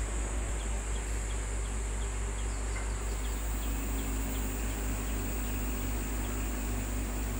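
Luminous EcoWatt inverter running with its cover off: a steady low transformer hum with fan noise and a faint high whine. A run of faint short high chirps, about three a second, comes through in the first half.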